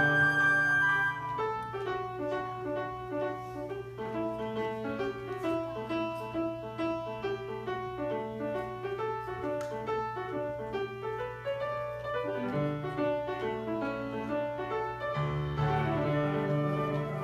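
Grand piano playing a solo passage of quick running notes. A flute holds one high note at the start, and the other instruments come back in near the end.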